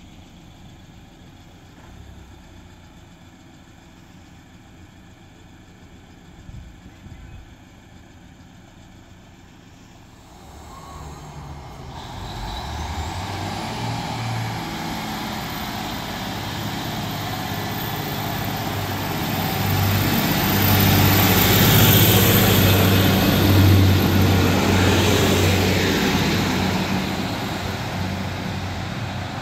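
Northern Class 150 Sprinter diesel multiple unit passing over the level crossing, its underfloor diesel engines running with wheel and rail noise. It builds from about a third of the way in, is loudest about two-thirds through, then begins to fade.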